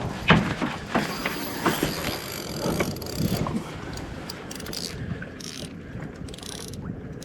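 Fishing reel mechanism ratcheting and whirring as the line moves. It is loudest for the first three and a half seconds, then fainter.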